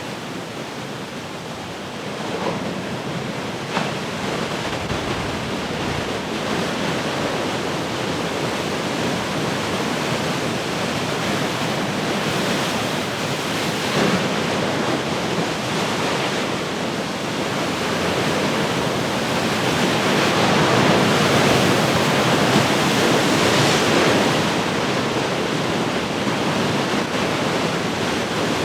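Heavy ocean surf breaking and washing continuously, swelling to its loudest about two-thirds of the way through, with a couple of brief sharp splashes.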